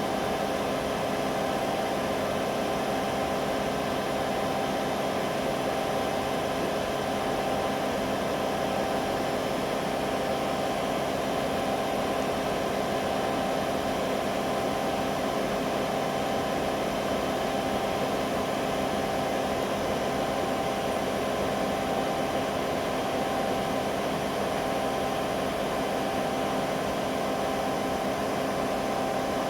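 Washing machine spinning an empty drum, a steady motor whine that holds one pitch throughout. The machine is set to spin at 1600 rpm, but the owner believes it is only reaching 1400 rpm, a suspected spin-speed fault.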